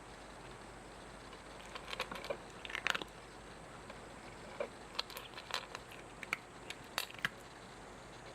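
A cat chewing and crunching food, a run of short, irregular crisp crunches, with a pause in the middle.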